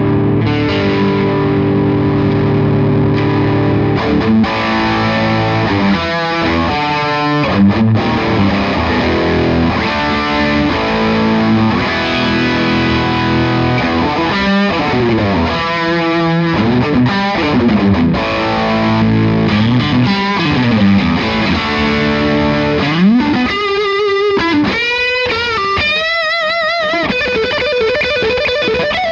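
Electric guitar played through the Iannucci Audio King of Tone overdrive pedal on its channel set like a distortion: held chords at first, then single-note lead phrases. Near the end comes a bent note held with wide vibrato.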